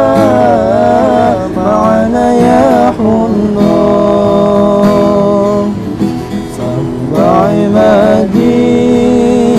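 A solo voice singing sholawat, an Islamic devotional song, in ornamented, wavering phrases with some held notes, over acoustic guitar accompaniment.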